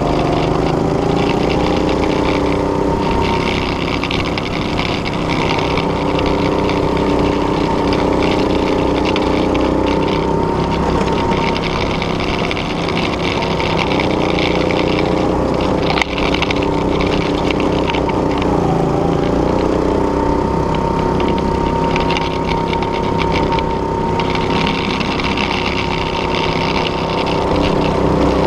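Go-kart's small engine running steadily under throttle, heard from on board the kart. Its pitch rises twice as it picks up speed, and there is a single sharp click about halfway through.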